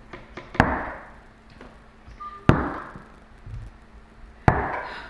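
Three heavy knocks on a door, about two seconds apart, each followed by a short ringing echo.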